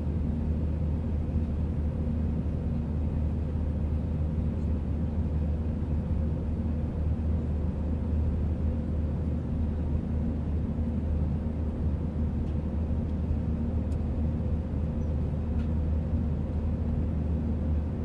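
Airbus airliner in flight: a steady, unchanging low engine drone with a constant hum over it.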